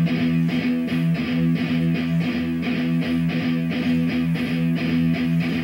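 Music: a guitar playing in a fast, even rhythm over held low notes.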